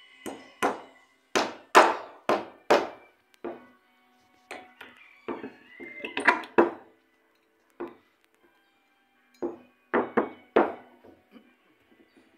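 Hammer nailing wooden formwork boards: sharp, ringing blows in irregular groups of a few strikes, with pauses between the groups.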